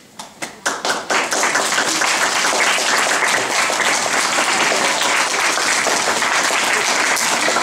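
Audience applauding: a few scattered claps, then within about a second it fills in to steady, full applause.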